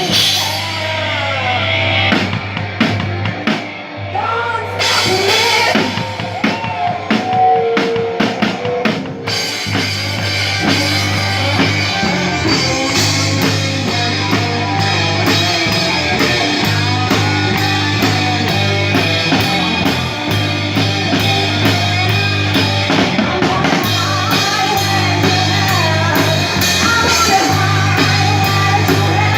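Music with a drum-kit beat.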